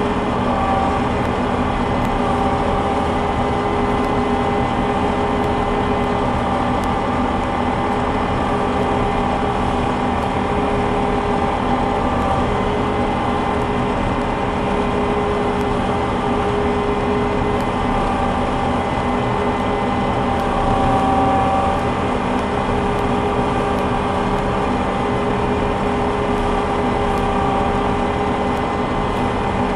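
Combine harvester running steadily while harvesting soybeans: a steady engine drone with several steady whining tones from the machinery.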